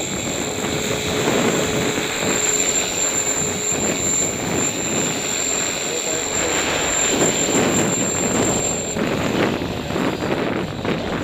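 Align T-Rex 500 electric RC helicopter in flight: rotor noise with a steady high-pitched motor and gear whine that cuts off near the end, under wind buffeting the microphone.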